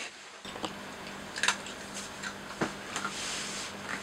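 A cat eating from a bowl: scattered small clicks and smacks of chewing, with teeth and tongue knocking against the dish.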